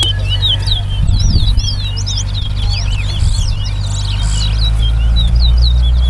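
Caged towa-towa (chestnut-bellied seed finches) singing a fast run of short, sweeping whistled notes, two males side by side. Under the song runs a low steady rumble.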